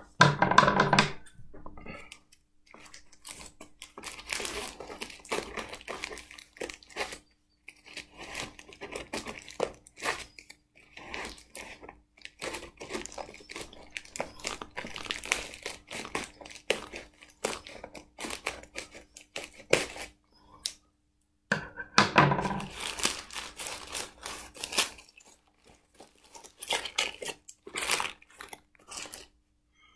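Packaging bag and wrapping being handled and pulled open, crinkling and tearing in irregular bursts, with a louder spell of rustling about two-thirds of the way through.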